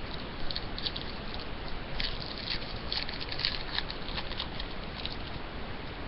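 Trading cards being handled: short, scratchy swishes and ticks as cards are slid and flipped and a pack is rustled, in clusters about half a second in and again from about two to four seconds in, over a steady low hiss.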